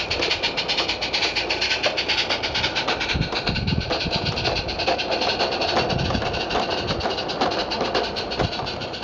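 Live-steam 16mm-scale model steam locomotive chuffing with rapid, even exhaust beats as it passes, with its train of small goods vans rolling and clattering along the garden track. The sound fades toward the end as the train moves away.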